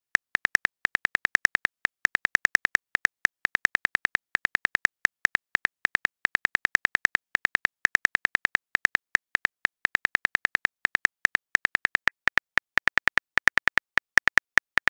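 Phone keyboard key-tap clicks typing a text message: a fast, even run of short clicks, about eight to ten a second, with brief pauses between words.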